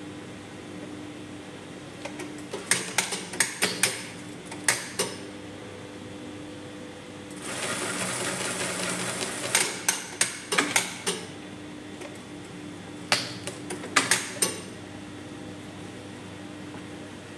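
Industrial lockstitch sewing machine run in short spurts: quick clusters of sharp clicks and knocks from the needle mechanism, and once, midway, about two seconds of continuous stitching. A steady hum runs underneath.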